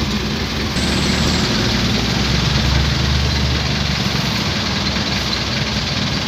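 Heavy vehicle engines idling in a traffic jam: a steady low drone over a wash of traffic noise, a little louder from about a second in.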